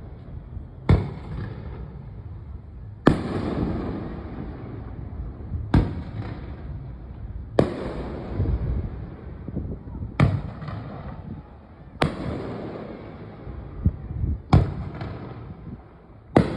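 Aerial firework shells bursting overhead, a sharp bang roughly every two seconds with a few smaller pops between. Each bang trails off in a rumbling, crackling echo.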